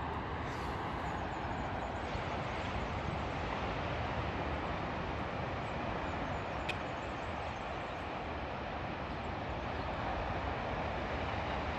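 Steady, even rush of wind and surf by the beach, with one short click about seven seconds in.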